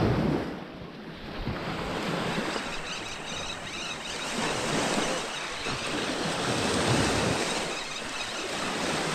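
Small waves washing onto the shore, the surf swelling and fading about every two seconds.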